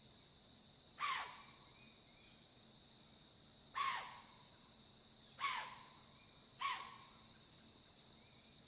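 A bird calls four times in short calls that fall in pitch, over a steady high insect chorus.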